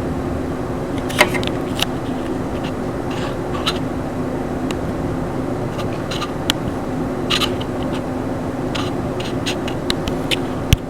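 Scattered light clicks and taps of a camera being handled while it fails to focus, over a steady low hum.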